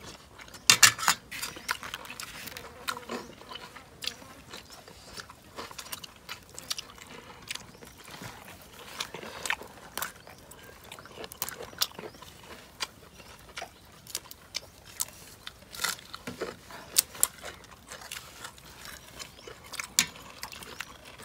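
Chewing and biting into crunchy food, most likely crisp lotus-stem salad, with irregular sharp crunches and clicks.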